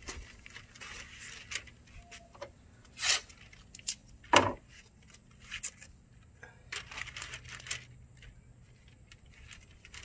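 Painter's tape being pulled off the roll and torn in short rasps, with masking paper crinkling as it is pressed into place. A single sharp knock about four seconds in is the loudest sound.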